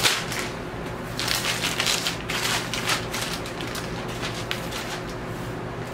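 Plastic poly mailer bag crinkling and rustling as it is handled open and a shrink-wrapped vinyl record is pulled out, busiest in the first few seconds and then thinning to occasional rustles.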